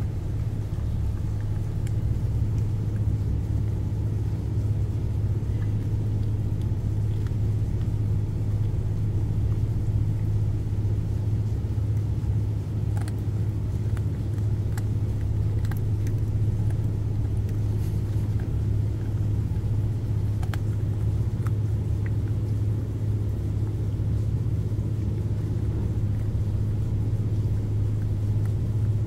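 Steady low drone of a ship's engine running, unbroken throughout. A few faint clicks come from a dog gnawing on a chew.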